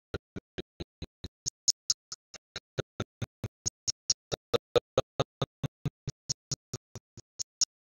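Rapid, evenly spaced short blips, about five a second, with silence between each. It sounds like the soundtrack stuttering into chopped fragments.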